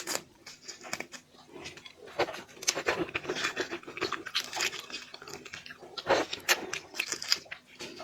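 Close-miked seafood eating: biting, chewing and crunching made up of many short crackly clicks, with sharper crunches about two and six seconds in.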